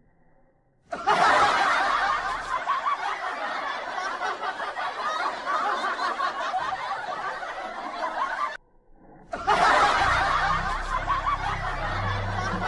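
Laugh track: a crowd of people laughing and snickering. It cuts in abruptly about a second in, drops out briefly near the end, then comes back.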